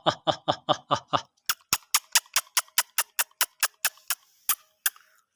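Chickens pecking rapidly at feed on a hard surface: a long, evenly spaced run of taps, about four to five a second. The taps are duller for the first second or so, then sharp clicks that stop shortly before the end.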